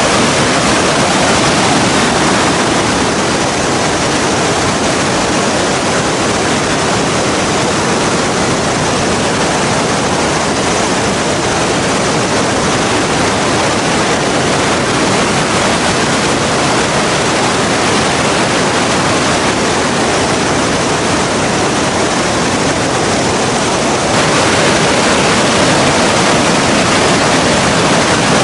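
Whitewater rapids of a swollen mountain river rushing over boulders: a loud, steady roar of water, a little louder near the end.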